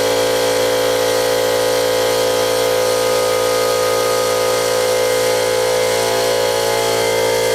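Lotos 5000D plasma cutter cutting 1/8-inch diamond plate steel: a steady, loud, hissing buzz with several held tones.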